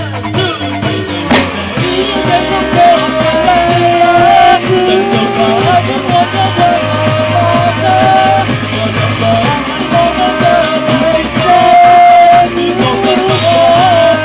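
Live band rehearsal: a woman and a man sing a melody together into microphones over a drum kit and acoustic guitar. A cymbal crash at the start rings out over about two seconds.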